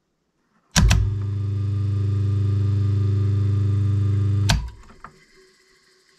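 Starter contactors clack in twice in quick succession, then a Brook Gryphon single-phase split-phase induction motor runs with a loud, steady mains hum for almost four seconds. A click about four and a half seconds in switches it off, and the hum dies away within about half a second.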